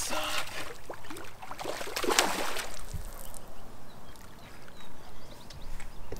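Hooked tiger muskie thrashing and splashing at the surface beside a kayak, with one big splash about two seconds in. The water goes quieter after about three seconds.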